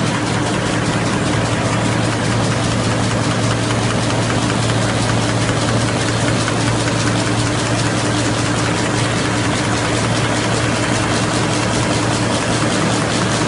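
FL Smithe RA WA envelope folding machine running: a steady mechanical clatter of rapid, even beats over a constant hum.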